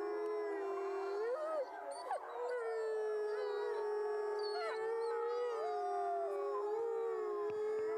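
Wolves howling in chorus: several long howls at different pitches overlap and are held steadily, with short slides up and down here and there.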